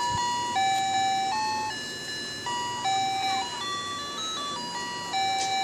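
A simple electronic melody of plain beeping notes, each held about half a second and stepping up and down in pitch, like the tune of a chiming toy.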